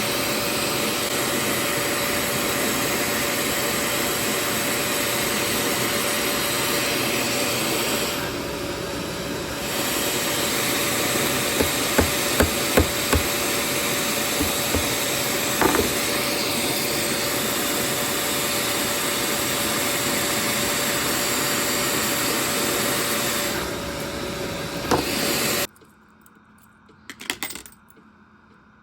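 Electric grinding tool running steadily with a constant hiss and a faint steady whine as metal is worked on the knife, with a few sharp clicks partway through. Near the end it cuts off abruptly, leaving near silence with a couple of small knocks.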